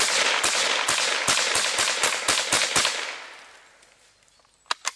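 Intro sound effect: a rapid run of about ten sharp cracks over a crackling haze, fading out after about three seconds, followed by two short sharp clicks near the end.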